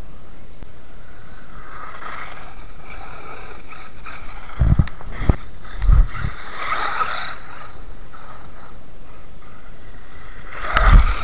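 WLtoys 12428 RC buggy's stock electric motor and gearbox whirring as it drives over icy snow, rising and falling, over a steady hiss of wind on the microphone. Several hard thumps a little under halfway in and a cluster of them near the end.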